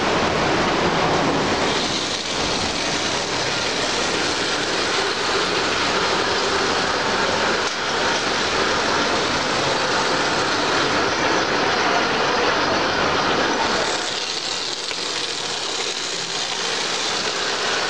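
Electric model trains running on layout track: a steady rolling whir of wheels and motors.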